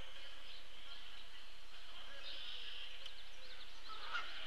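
Outdoor birdsong ambience: a steady high chorus of distant birds with faint chirps from small birds. Just before the end, a goose starts honking.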